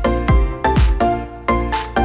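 Upbeat electronic background music with a steady kick-drum beat, snare hits and synth notes.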